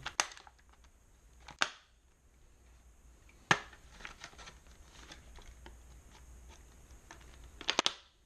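Packaging and a new hand crimping tool being handled and unpacked: scattered sharp clicks and small rustles, with one loud snap about three and a half seconds in and a quick run of clicks near the end.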